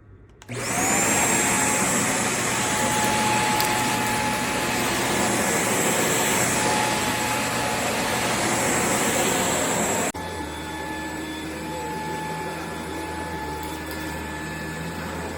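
Shark stick vacuum motor switching on about half a second in, its whine rising to a steady pitch, then running steadily with a loud rush of airflow. About ten seconds in, the sound drops abruptly to a quieter, lower hum.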